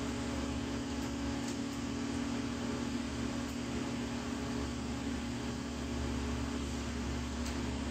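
Steady mechanical hum with an even hiss and a constant low drone, unchanging throughout.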